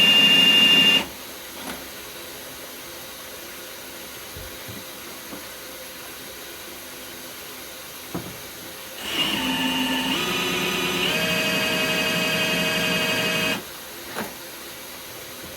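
Milwaukee M18 Fuel cordless hammer drill spinning a Flexshaft drain-cleaning cable to cut tree roots in a sewer line. It runs with a loud whine that stops about a second in, falls quiet apart from a few faint clicks, then runs again for about four and a half seconds, its whine stepping up in pitch twice before it cuts off.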